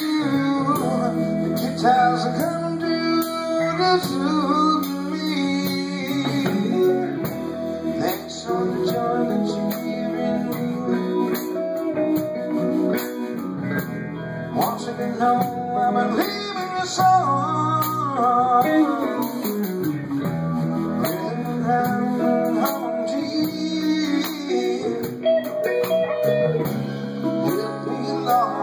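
Live band music: electric guitar over a drum kit, in a blues-rock style.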